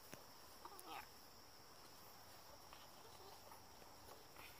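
Near silence with a faint, steady, high-pitched chirring of insects in the grass field, and one brief faint rising sound about a second in.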